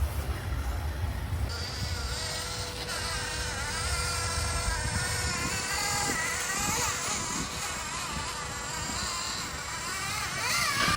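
Mini RC crawler's small electric motor and gear train whining as it drives, the pitch wavering up and down with the throttle and climbing near the end, over a steady hiss and a low rumble.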